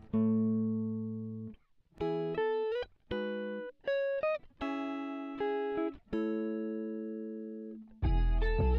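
Background music: a plucked, guitar-like melody of single notes that ring out and fade with short gaps between them. Near the end a fuller part with deep bass comes in.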